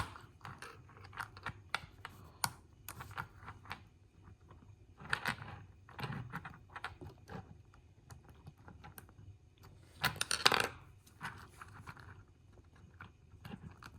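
Small plastic and metal parts of a model train locomotive clicking and scraping as its truck contacts and trucks are worked loose by hand. The handling gives many light irregular clicks, with two louder scraping stretches about five and ten seconds in.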